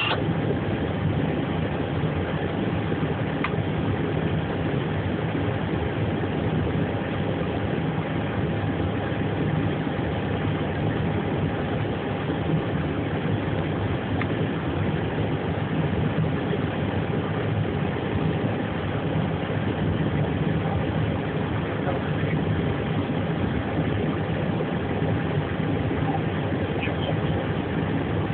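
Steady engine drone during an Airbus airliner's pushback by a tug, with a faint constant whine that never changes.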